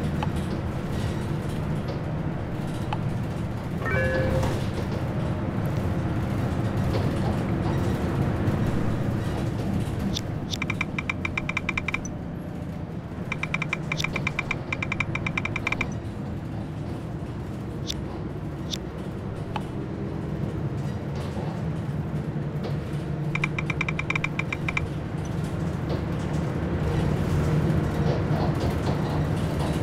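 Steady low drone of a bus cabin, with three short bursts of fast, even clicks from a smartphone keyboard as a chat message is typed.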